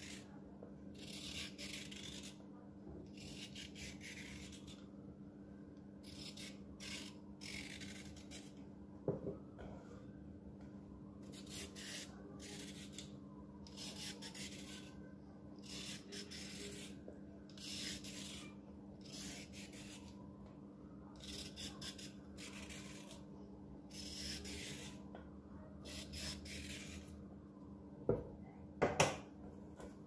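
Y-peeler blade scraping strips of peel off a raw carrot, in repeated short strokes roughly one a second. A few knocks on the wooden cutting board near the end.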